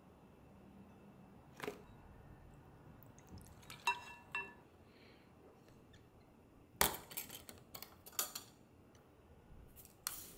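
Quiet kitchenware handling in a glass bowl-and-jar setting. About four seconds in come two short ringing glass chinks. Around seven and eight seconds a wire-clasp glass storage jar is unclipped and opened, giving clusters of metal-and-glass clicks.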